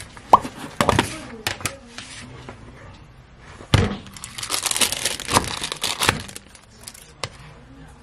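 Plastic food container and a sheet of paper handled on a kitchen counter: a few sharp clicks and knocks, then a stretch of paper crinkling for about two seconds.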